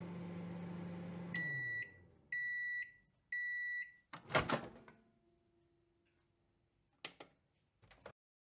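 Microwave oven humming as it runs and winding down, then three beeps as the timer finishes, followed by a louder clunk as the door opens and two short knocks near the end.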